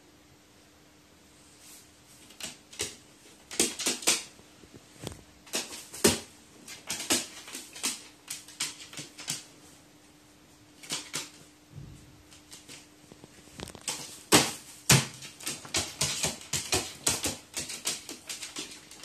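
A crow's beak and claws tapping and clicking on a wooden floor: irregular sharp clicks that start a couple of seconds in, thin out around the middle and come thick and fast near the end.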